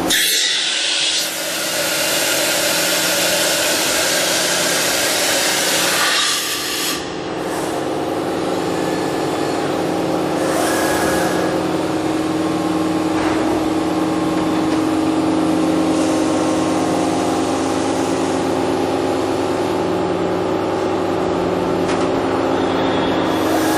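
Toshiba MPF-2114C vertical machining center running during a tool change, with a loud hiss for the first seven seconds or so. Under it the machine keeps up a steady hum with a held tone and a lower drone that pulses about once a second.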